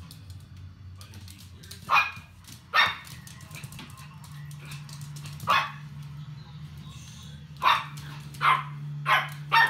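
A puppy barking in short, sharp yaps, about seven of them at uneven intervals and bunched closer together near the end, play-barking at a cat.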